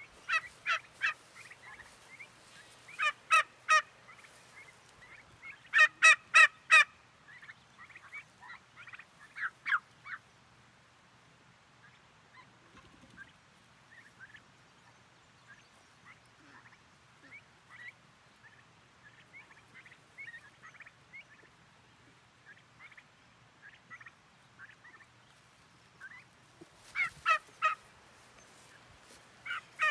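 A flock of young turkey poults peeping: many short, high chirps in quick clusters, loudest about six seconds in, then sparse quieter peeps, then louder again near the end.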